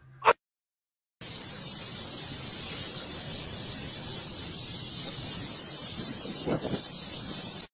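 Hundreds of baby poultry peeping all at once, a dense, high chatter. It starts about a second in, after a short sound and a gap of silence, and one louder, lower call stands out near the end.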